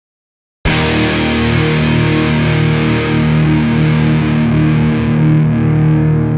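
Outro music starting abruptly about half a second in after dead silence: rock with distorted electric guitar, held steady and loud.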